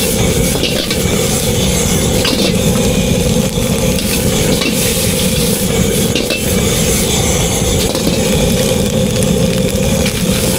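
Food sizzling as it fries in a hot pan, steady throughout, with scattered faint clicks of metal utensils.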